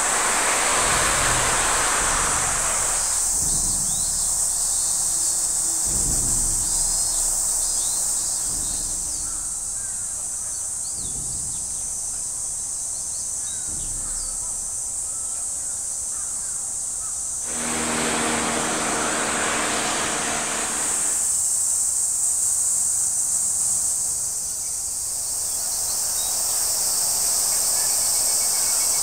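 Insects droning steadily in a high, unbroken band, with faint bird chirps. A broad rush of noise swells twice, at the start and about two-thirds of the way through.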